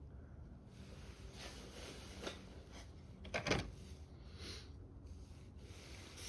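Faint rubbing and handling noises of hand work on car parts, with one short, louder scrape about halfway through.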